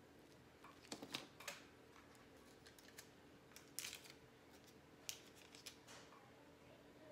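Faint crinkling of a clear plastic piping bag being handled and set down on a table, with a few light clicks and taps: a cluster about a second in, then single ones near four and five seconds.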